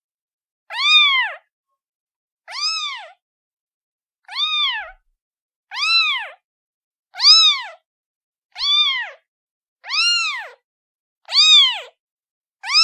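A kitten meowing over and over, one high call about every second and a half, each call rising and then falling in pitch. These are a kitten's calling meows.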